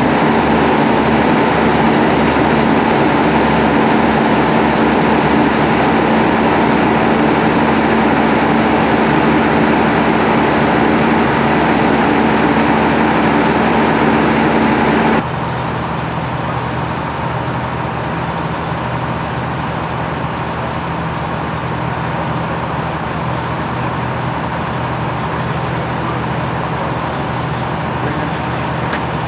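A heavy engine running steadily with a constant hum; about halfway through the sound drops suddenly to a quieter, lower drone.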